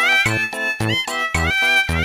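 Background music with a steady bouncy beat: a low bass note about twice a second alternating with chords, under a high melody line.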